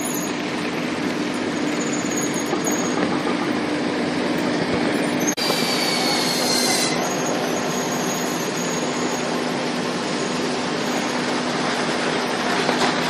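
Cellulose cooling-pad (celdek) making machine running steadily, feeding the paper through automatically, with a constant hum under a noisy mechanical rumble. About five seconds in there is a short break, then a high whine for about a second and a half.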